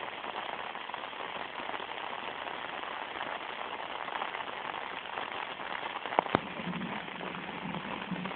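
Heavy rain falling steadily, a dense even hiss, with one sharp tap about six seconds in.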